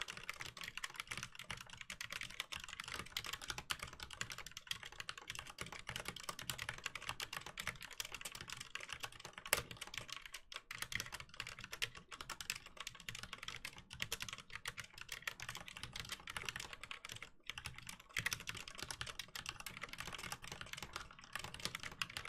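Fast continuous typing on a Mistel Barocco mechanical keyboard with linear Cherry MX Black switches, dense key strokes with brief pauses about ten seconds in and again a few seconds before the end.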